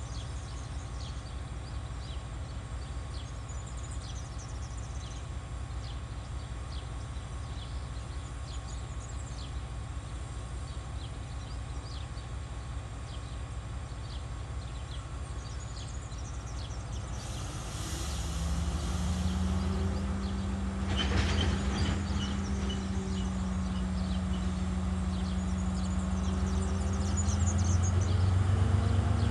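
Diesel engine of a TasRail TR class locomotive running at idle with a low rumble; about seventeen seconds in it throttles up, a steady hum and deeper rumble growing louder, with a brief hiss of air as it does. Faint high ticks and a short clank are heard over it.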